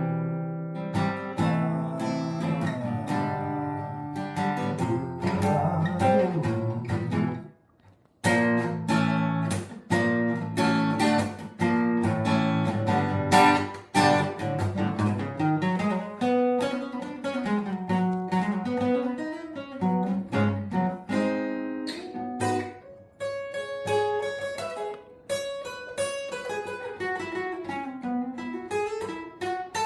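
Acoustic guitar music, strummed and picked, with a brief stop about seven and a half seconds in before the playing resumes.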